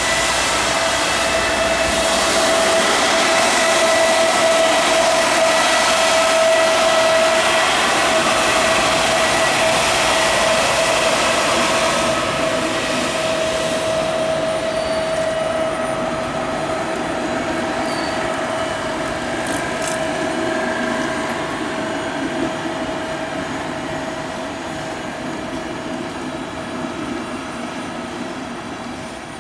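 Siemens Vectron electric locomotive and its passenger coaches rolling past over a railway bridge: a continuous rumble of wheels on rails with one steady high tone running through it. It is loudest in the first half and slowly fades as the coaches go by.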